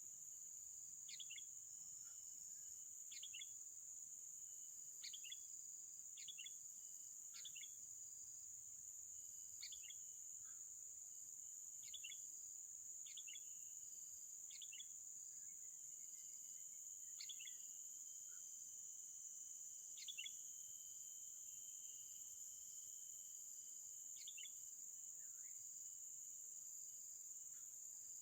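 A bird gives short, sharp chirps, about a dozen of them, spaced one to two seconds apart, over a steady high-pitched insect drone.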